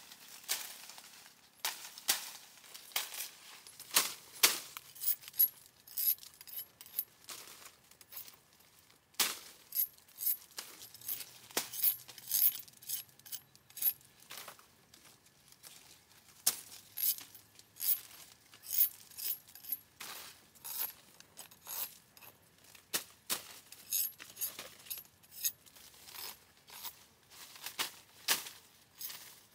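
Dry leaf litter and twigs crackling and snapping underfoot, with stems and fronds brushing, as someone pushes on foot through dry jungle undergrowth. Irregular snaps come throughout, the loudest around four and nine seconds in.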